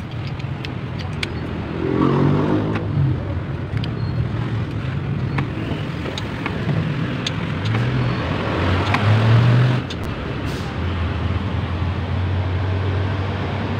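Torque wrench ratcheting with sharp irregular clicks while cylinder head bolts are tightened to 60 lb-ft; a click signals each bolt has reached the set torque. Under it runs the steady hum of motor-vehicle engines, loudest around the middle and again just before the last few seconds.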